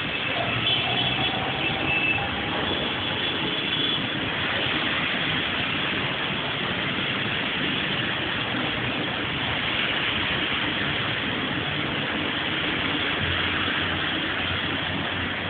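Rain falling steadily, an even hiss that holds its level throughout. A low hum joins near the end.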